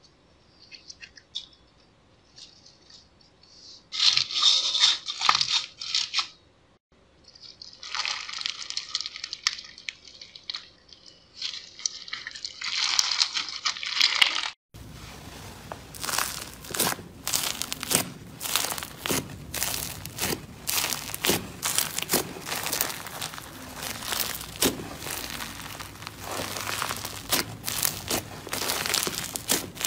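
Slime mixed with clear plastic beads being stirred and squeezed, giving bursts of high, hissy crackle with short pauses. After a cut about halfway, fluffy cloud slime is stretched and pulled apart by hand with a dense run of crackles and small pops.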